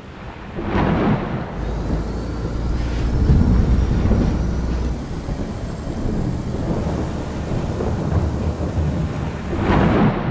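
Thunder rumbling over the noise of rain and choppy sea in a storm, with a deep rumble through the first half and louder surges about a second in and near the end.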